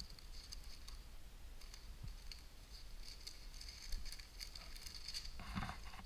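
Thin Bible pages being leafed through by hand, the paper giving off light crackles and ticks throughout, with a fuller rustle about five and a half seconds in.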